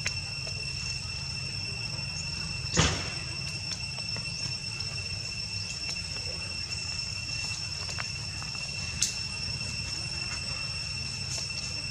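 Steady high insect whine on one pitch with a fainter higher tone above it, over a low rumble. A sharp knock comes about three seconds in and a smaller click about nine seconds in.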